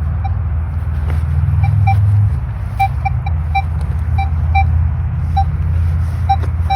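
Minelab Equinox metal detector giving short high beeps at irregular intervals as the coil is swept over the ground, over a steady low rumble.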